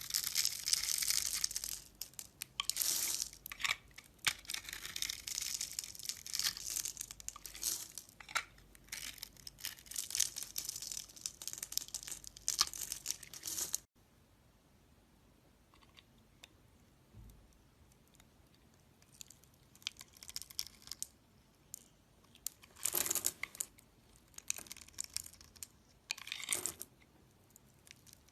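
A knife carving a dry bar of soap: a dense run of crisp scraping and crumbling cuts that stops abruptly about halfway through, followed by quieter, scattered cuts with two louder bursts near the end.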